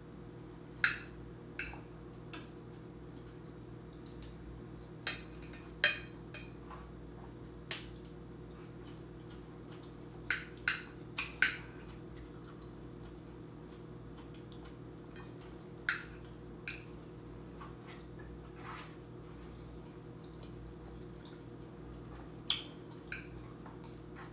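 A metal spoon clinking and scraping against a glass plate in scattered sharp clicks, several in quick succession midway, with faint wet chewing and mouth sounds of eating. A steady low hum runs underneath.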